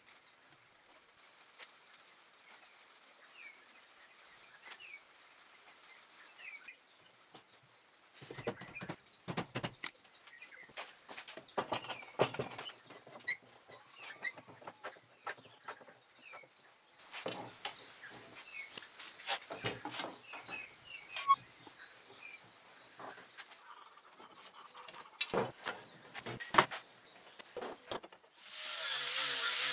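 Scattered clicks and knocks of steel bar clamps being fitted and tightened and of a glued wooden frame being handled on the bench, over a steady high insect buzz with a few bird chirps. Near the end a random orbit sander starts up and runs loudly.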